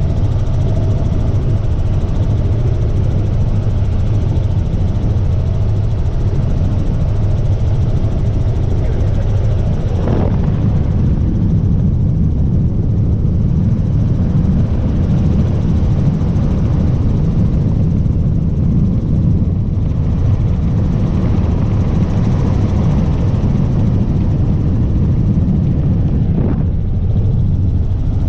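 Helicopter engine and rotor noise in flight: a loud, steady low drone. About ten seconds in, the higher hiss drops away a little.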